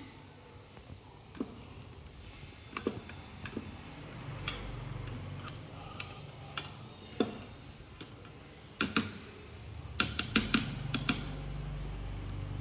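A metal spoon clicking and scraping against a small metal cooking pot as food is stirred: scattered light clinks, with a quick run of taps about ten seconds in. A low steady hum sits underneath from about four seconds in.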